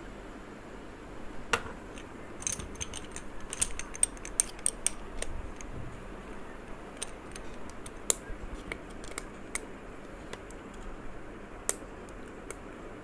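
Small metallic clicks and clinks of a cheap ceramic-burr hand coffee grinder being handled and its grind-adjustment nut turned, irregular, with a quick flurry of clicks a few seconds in and single ticks after. The adjustment is loose and wobbly, so it does not hold a consistent setting.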